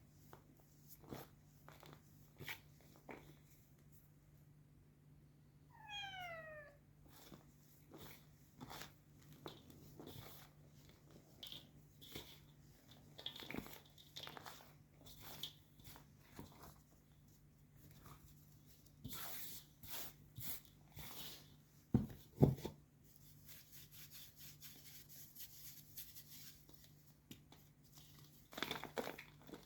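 White gym chalk being crushed, with scattered crunches and crumbles and two heavy knocks about 22 seconds in. A cat meows once about six seconds in, a short call falling in pitch.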